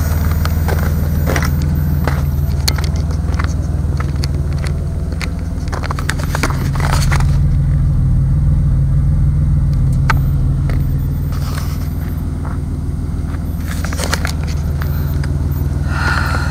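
Pontiac engine running with a knock that the owner takes for a rod knock, in a high-mileage engine. The engine picks up slightly about seven seconds in and settles again a few seconds later.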